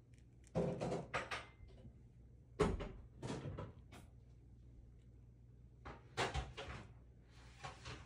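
A cat sniffing close to the microphone: short, quick sniffs in four little clusters, a few sniffs in each.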